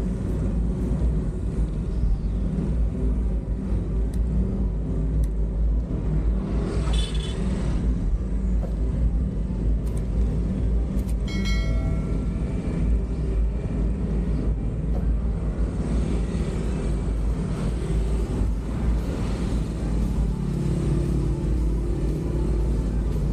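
Steady road noise recorded while riding along a road: a low rumble of wind on the microphone and vehicle hum, with passing traffic. A short pitched beep sounds about halfway through.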